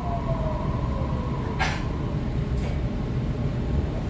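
Interior of a Waratah electric train slowing into a station: steady rumble with the motor whine falling in pitch over the first second or so, and a short hiss of air about a second and a half in.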